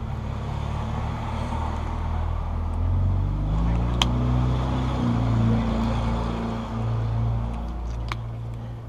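A motor vehicle engine running, its pitch rising and shifting in steps, with two sharp clicks about four and eight seconds in.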